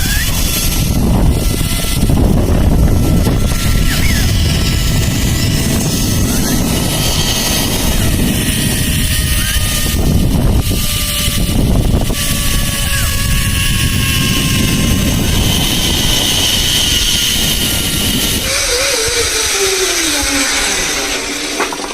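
Wind rushing over a phone microphone during a zipline ride, with the trolley pulleys whining along the steel cable in tones that slowly fall. Near the end the wind noise drops away and the pulley whine slides steeply down as the trolley slows toward the end of the line.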